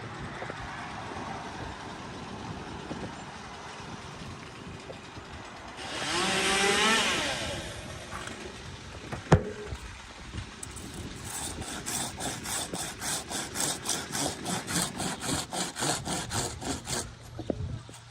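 A small engine revs up and back down about six seconds in, a sharp knock follows, and then a saw cuts through dead aspen wood in quick, even strokes, about five a second, for some six seconds.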